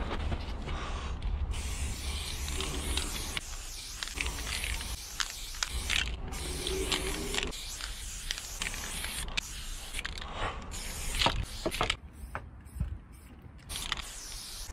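Aerosol spray-paint cans hissing in short bursts, with clicks and rattling from the cans being handled between the bursts.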